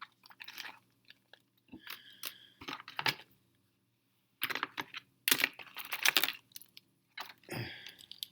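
Hands rummaging through small fingerboard parts and packaging: irregular clicks, clatter and crinkling, in short bursts with a busier, louder stretch past the middle.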